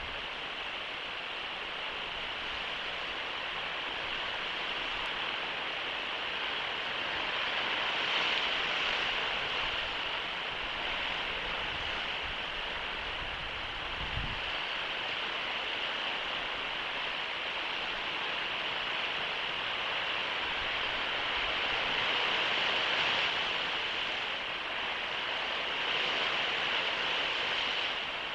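Steady rushing noise of surf and wind picked up by an outdoor nest-cam microphone. It swells gently a few times, with one soft low bump about halfway through.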